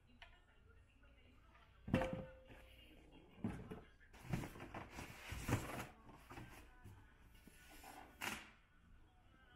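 Metal mahjong table legs knocking and clanking as they are set down and handled on a cardboard box: a sharp clank with a short ring about two seconds in, then a run of knocks.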